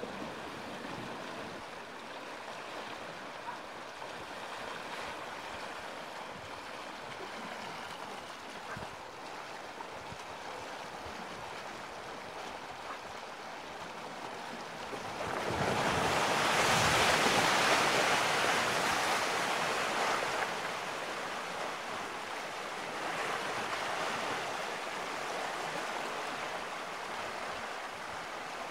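Steady rush of a spring river carrying ice floes. It swells into a louder, rougher rush for several seconds about halfway through, as a large ice floe runs into the bridge pier and grinds against it.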